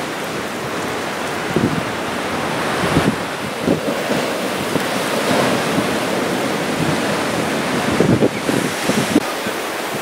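Strong offshore Santa Ana wind buffeting the microphone in irregular low gusts, over the steady rush of shorebreak waves breaking on the beach.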